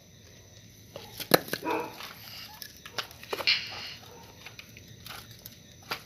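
Wooden logs being pulled off a toy logging truck's trailer and dropped onto dirt: a few sharp knocks with short scraping noises between them.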